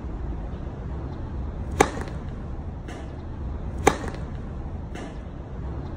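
Tennis serve: a sharp pop of the racket strings striking the ball on a jump serve a little under four seconds in, with another sharp impact about two seconds before it and a couple of fainter knocks, over a steady low rumble.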